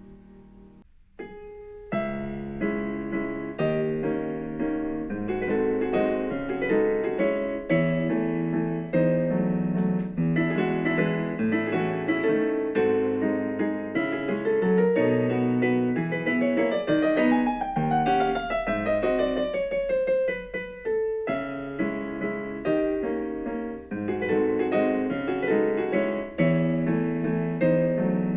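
Background piano music: a steady flowing piece, with a descending run of notes about two-thirds of the way through.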